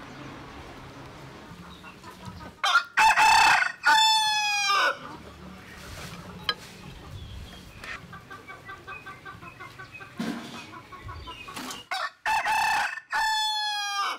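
A rooster crowing twice, about three seconds in and again near the end; each crow opens with a rough burst and ends in a long drawn-out note.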